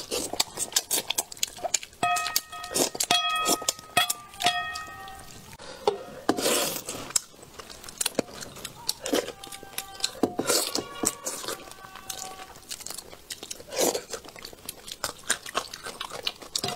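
Close-miked mouth sounds of a person eating spicy braised fish in sauce: wet chewing and lip smacking, with several loud slurps.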